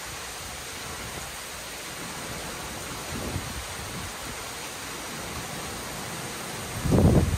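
Heavy rain in a steady hiss, with low rumbles of thunder: a faint one about three seconds in and a louder one near the end.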